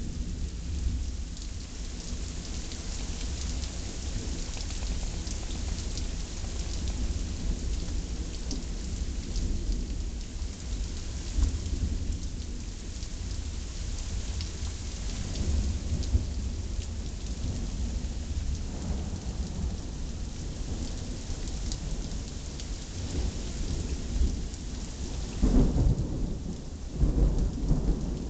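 Thunderstorm: steady rain hissing, with thunder rumbling low and continuously, and two louder rolls of thunder near the end.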